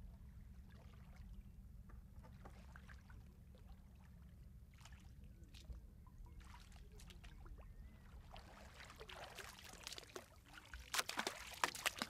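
Faint ambience of shallow seawater: a steady low rumble with light lapping and trickling, growing into louder splashing with a few sharp splashes near the end.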